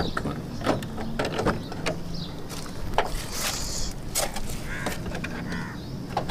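A car door being opened by hand, its handle and latch clicking, among footsteps and scattered knocks of handling.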